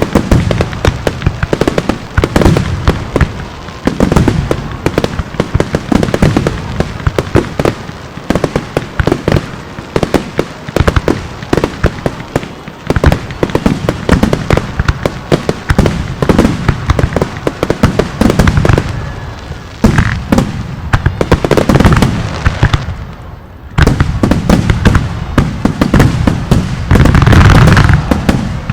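Aerial fireworks shells (up to 5-gou size) bursting in a rapid, overlapping finale barrage of many reports a second. There is a short lull just before the last few seconds, which are the loudest and most continuous.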